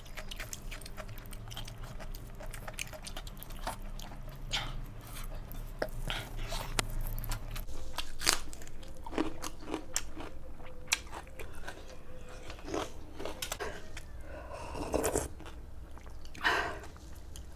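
Crunchy food being bitten and chewed close to the microphone, with sharp crunches at irregular intervals throughout.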